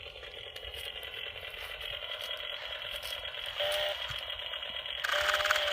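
Toy chainsaw's electronic motor sound buzzing steadily through a small speaker, growing louder near the end.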